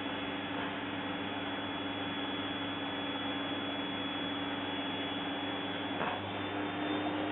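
Vacuum cleaner running with a steady hum and a thin high whine; about six seconds in the sound briefly changes and the hum then settles a little higher in pitch.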